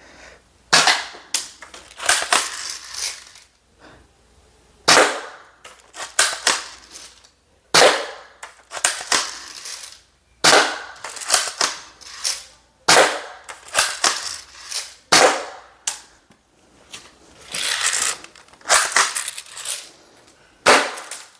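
Cheap pump-action airsoft shotgun fired again and again, a sharp snap every two to three seconds, with the clack of the pump being worked between shots.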